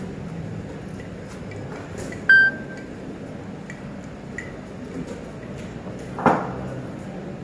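Steady hum of a busy chess tournament hall, with scattered light clicks of chess pieces and clocks. A short, loud electronic beep about two seconds in, and a sharp knock about six seconds in.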